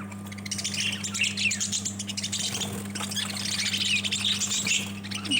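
Lovebirds chattering: many rapid, high chirps and squawks overlapping, over a steady low hum.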